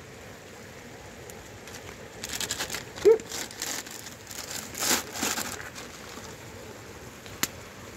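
Plastic and foil spice packets crinkling and rustling as hands rummage through them, in two spells. A short pitched sound about three seconds in is the loudest moment.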